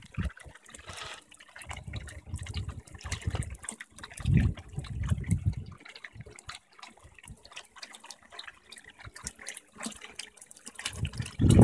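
Water trickling and splashing in a garden koi pond. Low rumbles on the microphone come in twice, about two seconds in and again around four to five seconds.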